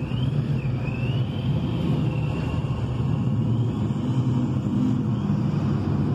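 Steady low rumble of classic V8 car engines running at low speed as cars roll past, among them a Ford Mustang 5.0. A faint high tone wavers slowly up and down over the rumble.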